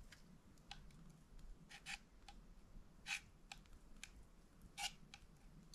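Small wood campfire crackling: sparse, irregular sharp pops and snaps, the loudest about three seconds in and again shortly before the end.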